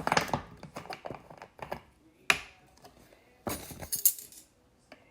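Metal measuring spoons clinking and jangling as they are handled. Sharp clicks near the start, one sharp click a little after two seconds, and a short rattle about three and a half seconds in.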